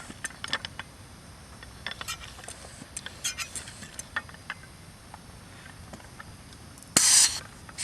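Bicycle tyre pump being worked on the wheel's valve, giving light irregular clicks and knocks, then a short, loud hiss of air about seven seconds in.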